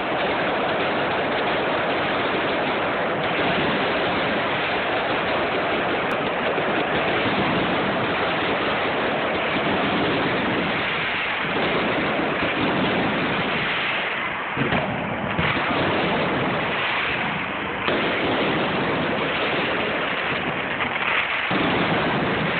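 Fireworks display heard through a phone microphone: a dense, continuous crackle and rumble of bursts blended into a steady loud rush, with a few sharper bangs in the second half.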